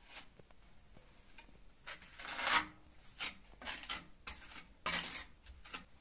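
Steel trowel scraping mortar across firebrick: a series of rough scraping strokes of uneven length, the longest and loudest about two and a half seconds in.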